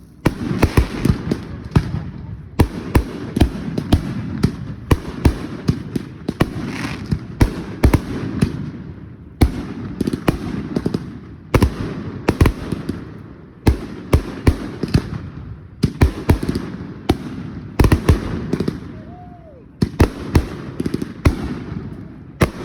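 Fireworks display: dozens of sharp bangs in quick succession, one after another, each trailing off in a rolling echo.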